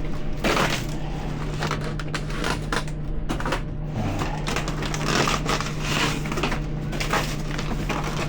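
Plastic food packaging rustling and crinkling as packaged cupcakes are handled, in a stream of irregular crackles that eases off briefly near the middle. A steady low hum runs underneath.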